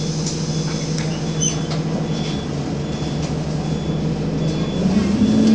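Isuzu Citibus diesel engine idling steadily while the bus stands at a stop. Near the end the engine revs up with a rising pitch as the bus pulls away.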